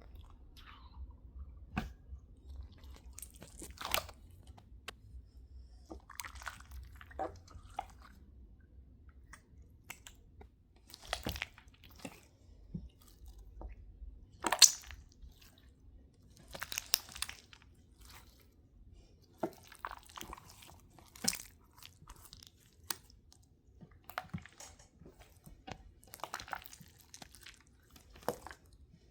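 Slime being squished, making irregular short squelching and crackling sounds, the loudest about halfway through.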